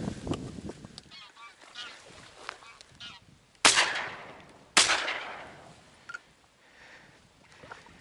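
Honking calls of waterfowl flying over, then a shotgun fired twice about a second apart, each shot fading slowly.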